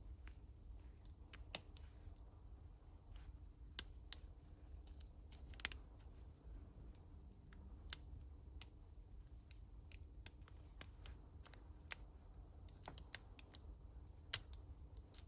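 Faint, irregular small clicks of a gem hook pick working the pin tumblers of an ASEC 50mm long-shackle padlock, with a few sharper clicks among them, while the picker struggles to set a couple of pins.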